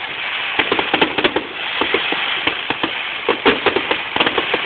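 Fireworks going off: a dense run of sharp, irregular crackling pops, several a second, over a steady background hiss.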